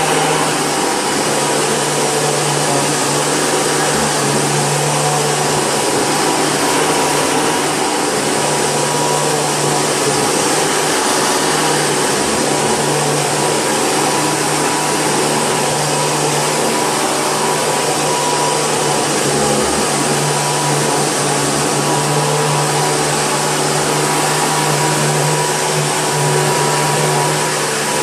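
Hoover Breathe Easy upright vacuum cleaner running steadily, its motor (which the owner believes is 12 amp) driving the brush roll on a brand new belt. It makes an even rushing noise with a steady hum and a higher tone on top.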